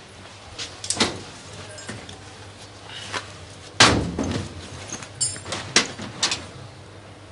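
Metal left-luggage locker being opened and loaded: a couple of sharp clicks about a second in, a loud metallic bang just before four seconds as the bag goes into the locker, then several smaller clicks and clacks of the locker door and its latch.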